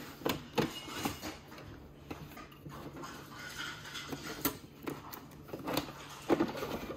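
Scattered light clicks, taps and rustles of hands handling a new small plastic single-serve coffee maker and its packaging.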